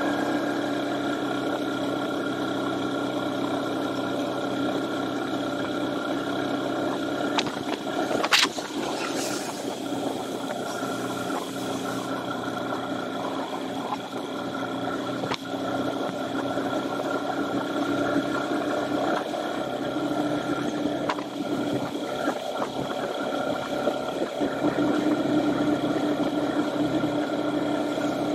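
Honda FTR223's 223 cc air-cooled single-cylinder four-stroke engine running steadily on a long downhill stretch, with wind and road noise on a bike-mounted camera. A sharp knock about eight seconds in.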